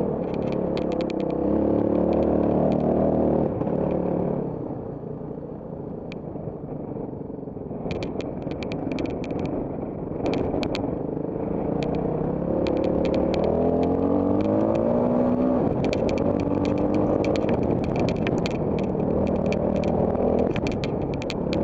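Trail motorcycle engine revving up and easing off as it rides a stone and dirt track, with many sharp clicks and rattles of stones and the bike. The engine falls back for a few seconds after about four seconds, then picks up again.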